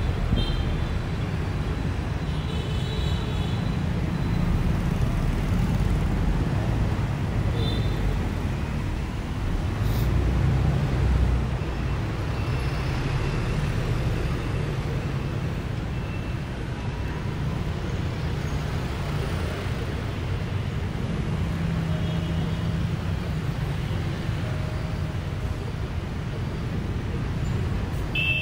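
Busy city street traffic heard from the open top deck of a moving double-decker bus: a steady low rumble of engines and road noise, with short horn beeps several times.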